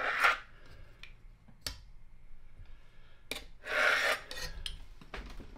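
A long metal blade scraping through rolled-out dough against a wooden board: two short scraping strokes, one right at the start and one about four seconds in, with a few light taps between.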